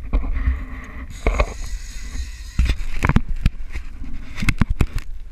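Low wind rumble on the microphone aboard a boat, broken by a series of sharp knocks, several close together near the end.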